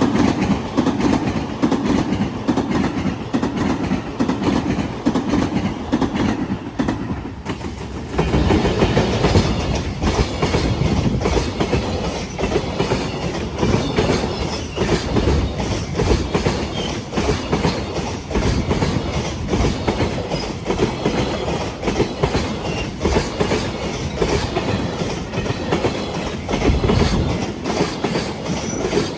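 Freight train wagons rolling past at speed, their wheels clattering over rail joints in a fast, continuous clickety-clack. The sound dips briefly about seven seconds in, then comes back louder.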